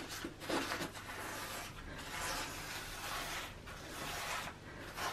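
Rubber-gloved finger rubbing along freshly pointed mortar joints between brick slips, a rough scraping repeated stroke after stroke as the half-set mortar is pressed in and smoothed.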